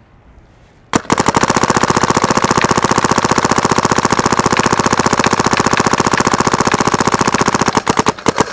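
SP Shocker XLS spool-valve electronic paintball gun firing a long, fast, steady string of shots, starting about a second in, breaking into irregular bursts near the end. The shots hold up with no drop-off in pressure.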